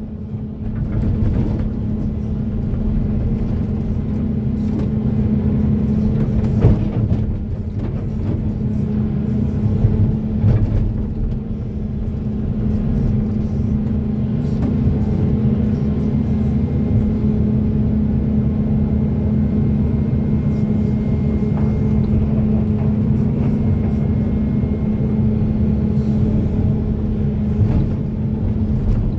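Hydraulic excavator's diesel engine running steadily under load, a constant deep drone, with a few brief knocks and clanks from the digging work.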